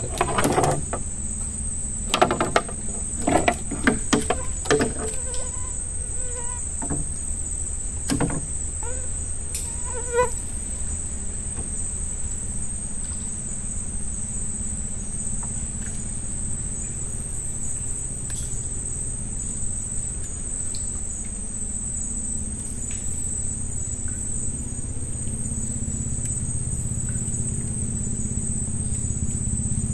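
Steady high-pitched trilling of a night insect chorus, crickets among them. Over it, a run of sharp knocks and clatter in the first ten seconds, and a low steady hum that grows a little louder near the end.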